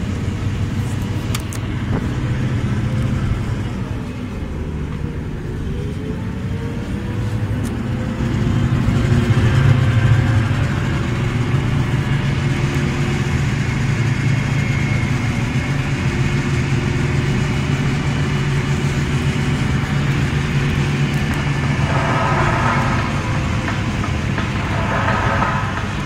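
Tour boat's engine running steadily under way, getting louder about eight seconds in as the boat comes ashore, with brief voices near the end.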